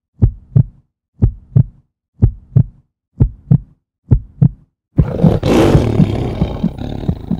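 Intro sound effects: five heartbeat-like double thumps, one pair about every second, then a sudden loud rushing roar from about five seconds in.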